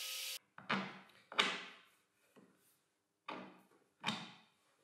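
The column drill's steady running noise cuts off suddenly, then four short wooden knocks and clunks come a second or two apart as plywood sled parts and hardware are handled on the workbench.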